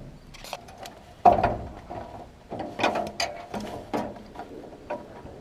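Metal clicks and clanks of a wrench working a bolt loose on the gathering-chain sprocket of a John Deere combine corn head, with a heavier knock about a second in and a run of sharp clanks in the middle. The sprocket is being taken off because its bearing has failed.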